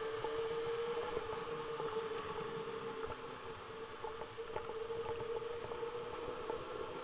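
Sport motorcycle riding at a steady cruise: its engine holds one steady whining note over a constant hiss of wind and road noise.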